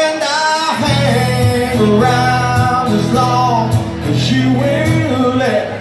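Live band music: an electric guitar and an acoustic-electric guitar play through a PA. Full held chords begin about a second in and stop just before the end.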